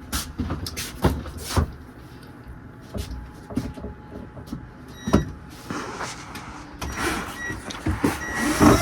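Scattered knocks and clunks from a wooden kitchen cabinet unit being handled and taken apart, then a longer stretch of scraping and rustling near the end.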